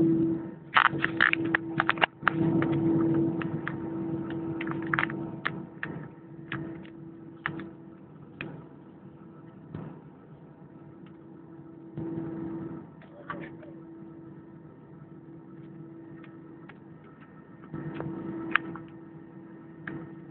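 Airbus A320 cabin sound with the engines at idle on the runway: a steady low hum that is louder in the first few seconds and swells briefly twice later, with scattered clicks and knocks.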